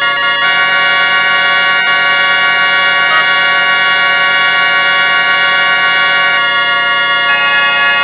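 Pingu's 'noot' honk, digitally stretched into one long, loud, steady horn-like drone made of many stacked tones. The mix shifts slightly about half a second in and again near the end.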